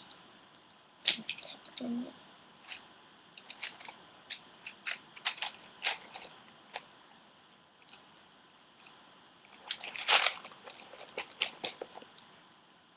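Felt-tip pens and colouring pencils being rummaged through and handled on a bedsheet: a run of irregular light clicks and clatters, busiest about ten seconds in.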